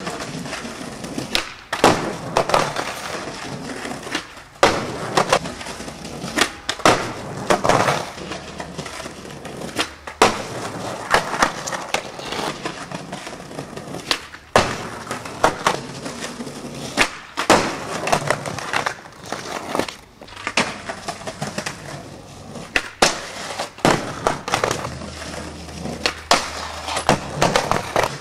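Skateboard wheels rolling over a brick-paver patio, broken every few seconds by sharp clacks and clatters as the board pops, lands and hits the ground during tricks.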